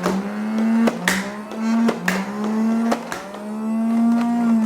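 Motorized Nerf dart blaster's flywheels whirring, with a sharp click about once a second as darts are fired and the pitch dipping slightly after each shot. The whir stops suddenly near the end, once the magazine is empty.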